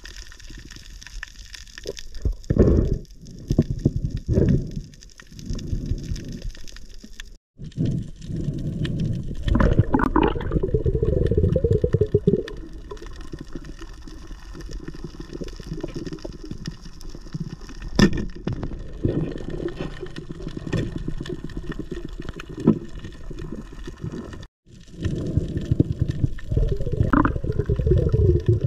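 Water rushing and sloshing around an underwater camera, heard as uneven low surges with a few sharp clicks; the sound drops out briefly twice.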